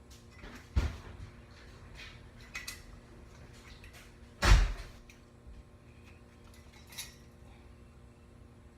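A few scattered knocks and clunks: a sharp thud about a second in and a louder, heavier thud about four and a half seconds in, with lighter clicks between.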